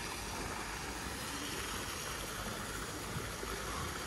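Water jets from pool fountains splashing steadily into a swimming pool.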